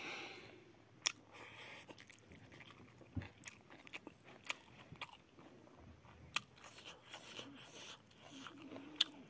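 Quiet close-up eating sounds: a man chewing a mouthful of rice, with lip smacks and a few scattered sharp clicks as he picks food from a steel plate with his fingers.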